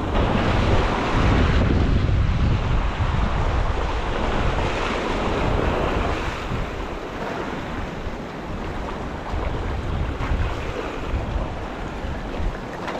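Sea waves washing and breaking against the rocks of a jetty, with wind buffeting the microphone.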